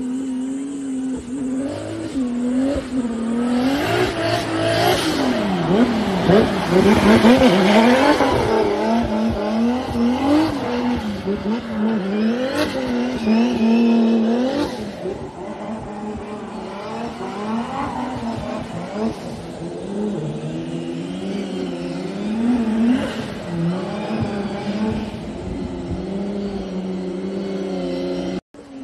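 Race car engine revving hard, its pitch swinging up and down again and again with throttle and gear changes. It is loudest about six to ten seconds in, eases off later, and cuts out abruptly near the end.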